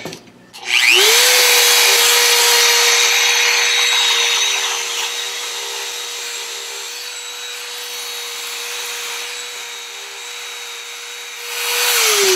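Dremel rotary tool spinning up to a steady high whine and smoothing the edge of a hand-hole cut in a starboard (HDPE plastic) plate, then winding down near the end.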